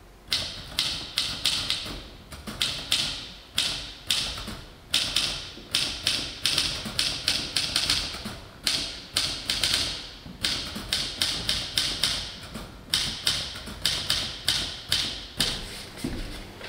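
Hermes manual typewriter being typed on: quick, uneven runs of key strikes broken by short pauses. The strikes stop near the end.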